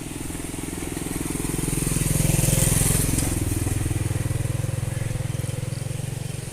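A low, droning hum with a fast, even pulse, swelling louder about two seconds in and then easing back; it is the mysterious sound that the local people hear at night, thought to come from the sea.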